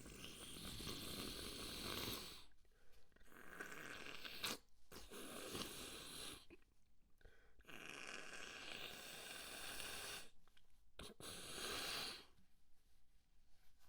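A person blowing their nose in a series of about five long, noisy blows, each lasting one to two and a half seconds, with short pauses between them.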